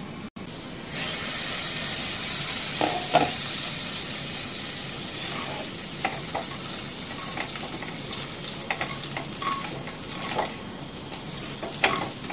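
Cubed potatoes sizzling in oil in a kadai, being stirred with a silicone spatula. Scattered light scrapes and taps of the spatula against the pan sound through the sizzle. The sizzle starts loud about a second in and fades slowly as the potatoes, now cooked through, are turned.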